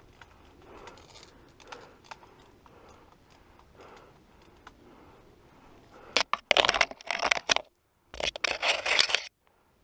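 Footsteps crunching through dry fallen leaves in woodland undergrowth. About six seconds in, and again around eight seconds, come two loud stretches of rustling and scraping, about a second each, as branches and brush rub against the worn camera.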